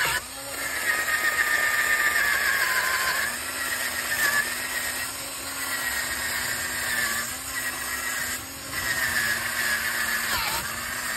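Cordless drill spinning a wire wheel brush against a brake caliper, scouring off flaking paint: a steady motor whine under a harsh wire-scraping hiss. The drill's pitch and level waver and dip briefly a few times, and it cuts off suddenly right at the end.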